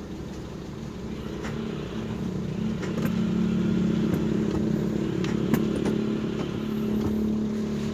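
Toyota Lite Ace engine running steadily at idle, still warming up after a cold start, growing louder over the first few seconds and then holding even, with a few light clicks.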